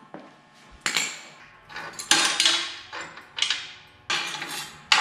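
Metal hand tools clinking and clanking against metal as a socket wrench unbolts the turbo exhaust manifold from a race mower's engine. There are about five sharp metallic knocks, each with a short ringing tail.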